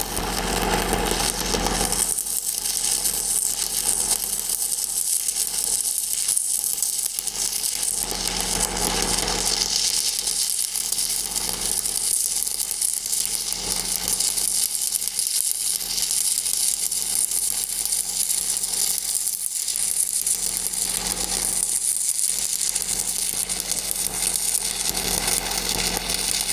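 Stick-welding arc crackling and sizzling steadily as a 3/16-inch electrode runs a downhill cap pass on pipe.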